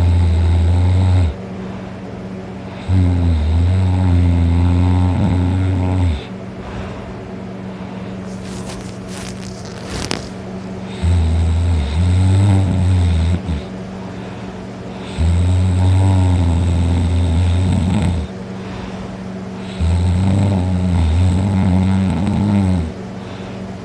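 A person passed out drunk snoring very loud: five long, low snores, each about three seconds, with a longer pause midway.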